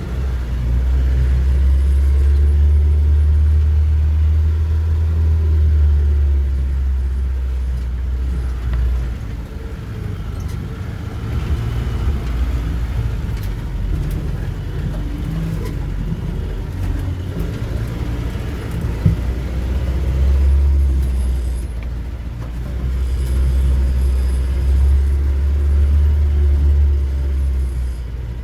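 A car driving off-road: the engine runs under load with a deep rumble that swells, eases through the middle and swells again near the end.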